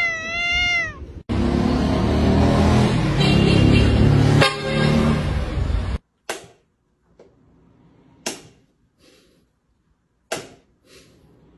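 A cat gives a long, wavering meow that rises and falls in pitch, complaining at being stroked against the lie of its fur. After a cut come about five seconds of loud rough noise, then quiet broken by four sharp taps roughly two seconds apart.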